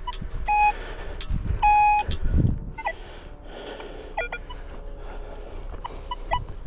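Nokta Legend metal detector sounding short, steady beeping target tones several times. There are two dull low thumps about one and two and a half seconds in.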